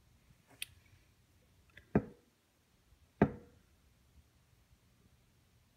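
Two sharp knocks about a second apart, each with a short ringing tail, from a steel golf shaft with a drill chuck on its tip being handled and loaded by hand. A fainter click comes before them.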